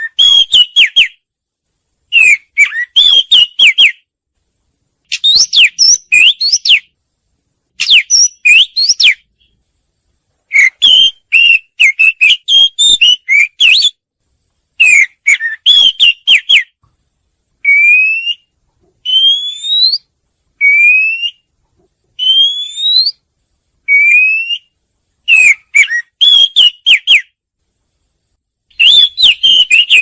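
Oriental magpie-robin song: phrases of quick, varied whistled notes, each a second or two long, separated by short silences. Midway the phrases give way to four single rising whistles.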